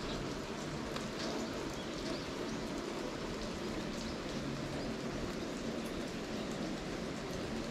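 Steady rain falling, an even hiss with a few single drops standing out now and then.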